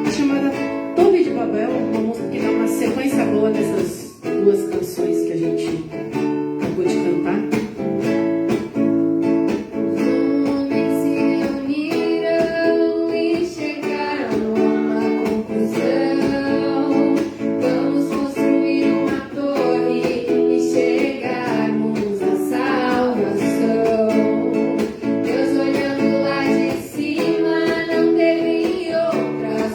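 Guitar playing a song with steady strummed and picked chords, with a voice singing along in places.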